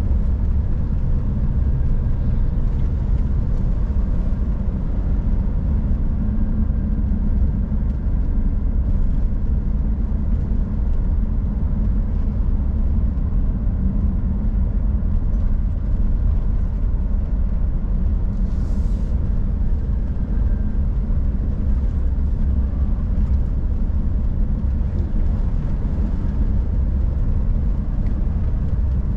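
Scania R440 truck's six-cylinder diesel engine running steadily while cruising, with tyre and road rumble from a snow-covered road. There is a brief hiss about two-thirds of the way through.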